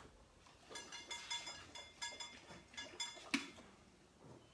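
Faint jingling and clinking of small metal pieces in several short bursts, with a sharper clink a little past three seconds in.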